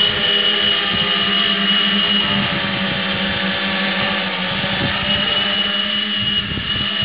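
Eight-rotor camera drone (octocopter) lifting off and climbing, its electric motors and propellers giving a loud, steady whine made of several held tones. The pitch wavers slightly about four seconds in.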